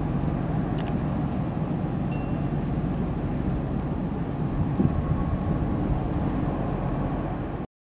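Steady low rumble of a large ship's diesel engines running as the ferry manoeuvres in, with exhaust puffing from its funnel. The sound cuts off abruptly just before the end.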